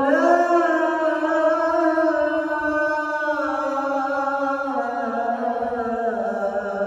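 A male voice reciting the azan, the Islamic call to prayer, in one long, held, ornamented phrase whose pitch steps down twice toward the end.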